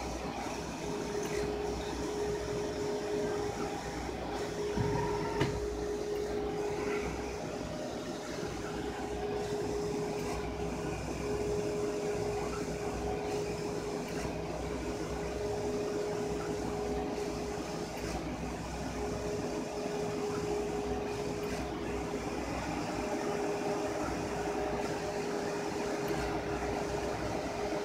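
HP wide-format inkjet printer running as it prints, its print-head carriage shuttling across the media with a steady whir and a constant hum.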